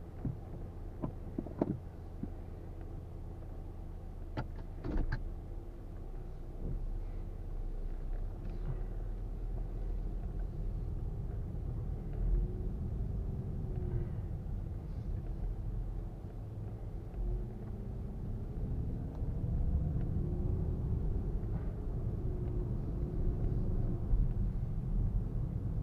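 Nissan Fuga 370GT's VQ37VHR V6 engine running, with a few sharp clicks in the first five seconds. From about six seconds in, the car is under way: a steady low road-and-engine rumble, with the engine note rising and falling gently.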